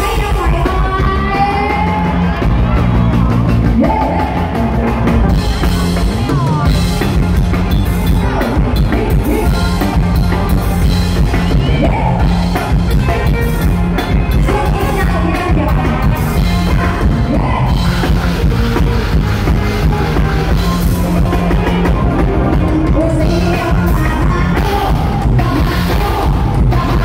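Live Thai luk thung band playing loudly, with a drum kit and steady bass under a gliding vocal melody.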